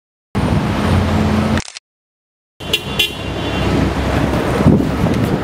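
Street traffic: motor vehicles running and passing, a steady rumble. The sound cuts out to dead silence at the start and again about a second and a half in, for about a second each time.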